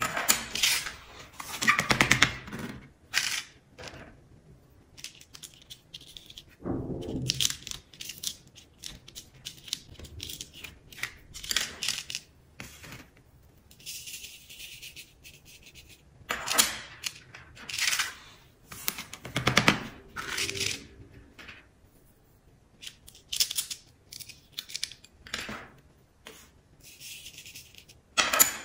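Orange plastic spoon scooping coloured sand from plastic containers, sprinkling it onto a sticky sand-art card and rubbing it in. Irregular separate scrapes and short rustling hisses, some with a soft thud.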